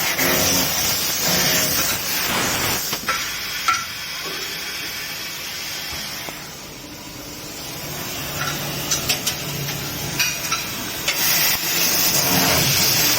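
CNC tube laser cutting machine cutting carbon steel rectangular tube: a steady hiss from the cutting head with scattered sharp ticks. The hiss drops for a couple of seconds midway, and a low machine hum comes in near the start and again near the end.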